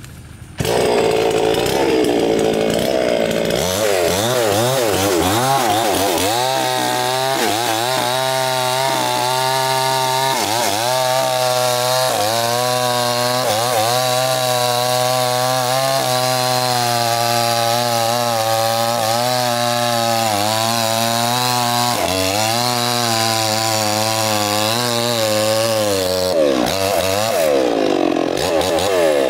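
Stihl two-stroke petrol chainsaw running at high revs, cutting into the base of a coconut palm trunk. It comes in loud within the first second. The engine pitch wavers as the chain bites and eases in the wood, and sags lower near the end.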